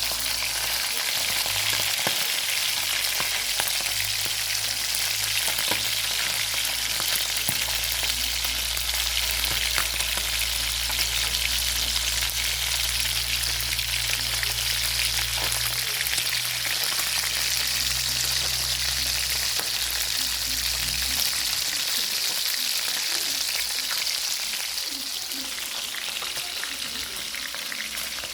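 Chicken frying in hot oil in a pan, a steady sizzle with fine crackling. A low hum underneath stops a little past two-thirds of the way through.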